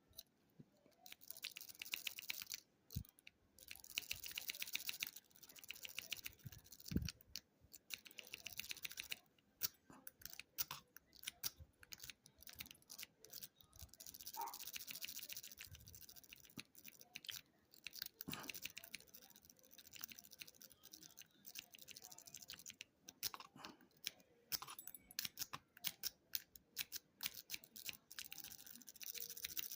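Steel quint rake worked rapidly in and out of the keyway of a Master Lock No. 5 padlock. It makes bursts of fast fine clicking and scraping against the lock's four pins, with a couple of single knocks. The raking does not open the lock.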